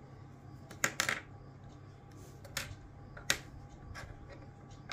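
Small plastic parts of an RO water-purifier tap clicking and tapping on a wooden tabletop as the tap is taken apart and laid out: a few sharp, separate clicks over a faint steady hum.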